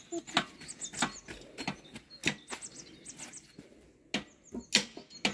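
Irregular sharp clicks and knocks, some close together, over birds chirping in the background.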